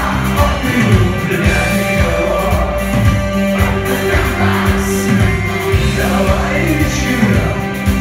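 Live rock band playing with a steady drum beat, keyboards and electric guitar, with a male lead vocal singing over it.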